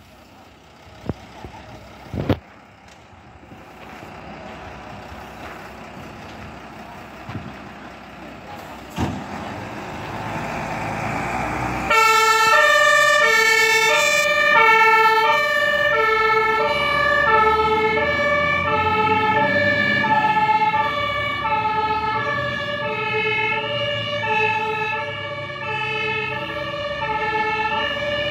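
Mercedes-Benz tanker fire engine's diesel engine running and growing louder as it pulls out, then its two-tone German siren (Martinshorn) switches on about twelve seconds in, alternating between two pitches about once a second while the truck drives away on an emergency run.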